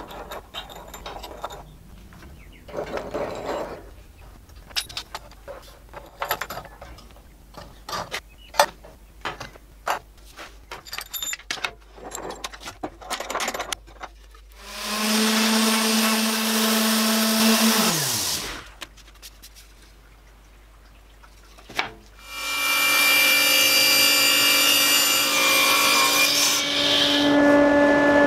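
Clicks and knocks of steel bar clamps being worked and a wooden board being handled. About fifteen seconds in, a power tool runs for about three seconds and winds down with a falling hum. About twenty-two seconds in, a table saw starts up and runs steadily.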